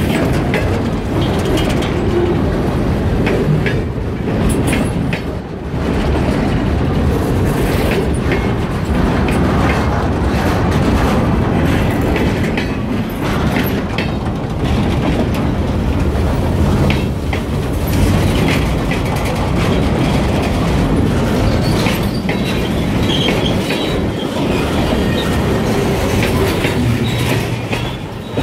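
Freight train cars rolling past close by: a steady rumble of steel wheels on rail, with many short clanks and clicks from wheels and couplers. A few brief wheel squeals come in near the end.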